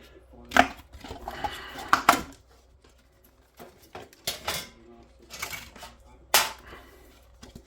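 Scattered clinks and knocks of scrap TV parts being handled and set down on a workbench, about half a dozen sharp hits with quieter handling noise between.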